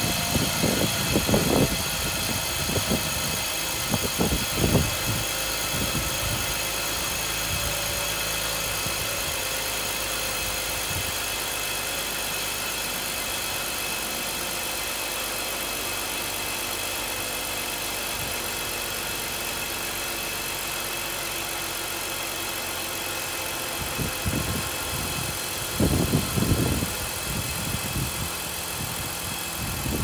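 BMW M54 inline-six engine of a 2005 325i E46 idling steadily, running on a freshly replaced cylinder-6 ignition coil fitted to cure a P0306 misfire and rough idle. A few brief low thumps and rustles come near the start and again near the end.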